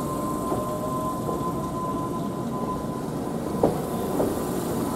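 Former Tokyu stainless electric train departing and rolling past, a steady rumble with a thin high hum. The wheels clack twice near the end.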